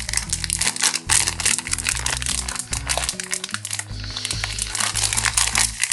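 Metallised plastic snack packet crinkling and crackling as it is torn open and handled, over background music.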